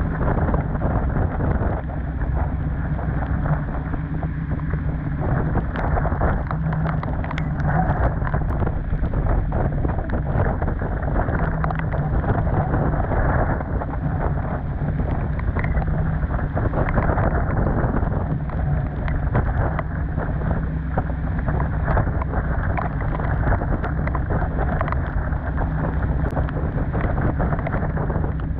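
Storm wind buffeting the microphone while water rushes along a sailboat's hull, with rain and spray ticking throughout and a steady low hum underneath.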